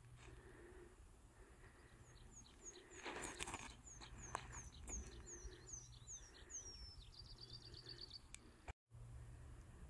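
A small songbird sings faintly: a run of quick, high, falling notes ending in a fast trill. About three seconds in there is a brief scuffing burst of noise from the disc golfer's throw on the tee.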